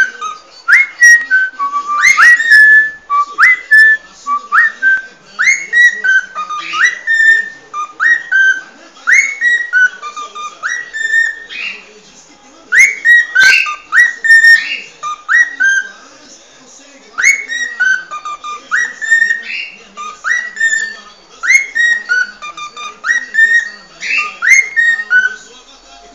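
Cockatiel whistling its natural species song rather than a learned tune: short rising whistle notes repeated about two a second, in phrases broken by brief pauses.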